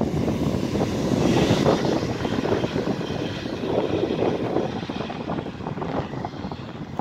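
Multiple-unit passenger train running past below and pulling away along the line, its rumble loudest early on and fading as it recedes.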